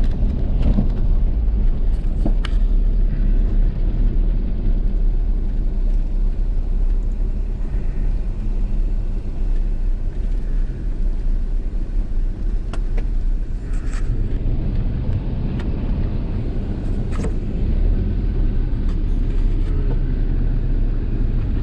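Vehicle driving, a steady low road rumble with a few sharp knocks scattered through it.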